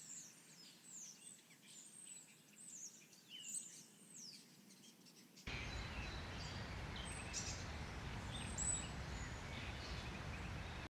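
Faint bird chirps and quick whistled calls, short rising and falling notes. About halfway through it changes suddenly to a second ambience: a steady low rumble with more faint bird chirps over it.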